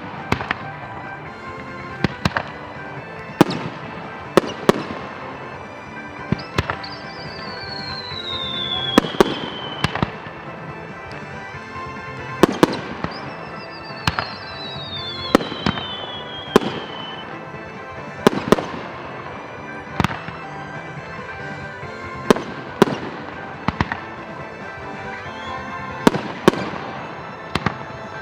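Fireworks shells bursting in a steady barrage, a sharp bang every second or two, some followed by crackling. Background music runs underneath, and two long falling whistles sound in the middle.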